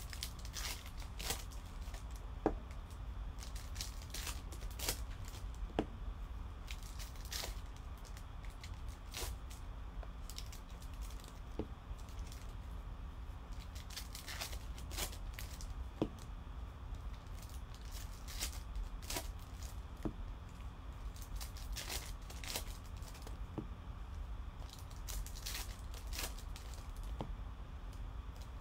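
Trading cards being flipped through and slid off a stack by hand: irregular soft clicks and rustles, a couple of times a second, over a low steady hum.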